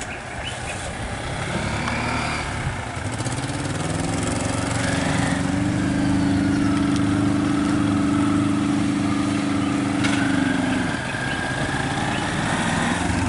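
A small vehicle engine running close by, its pitch rising a few seconds in, holding steady, then dropping back about eleven seconds in.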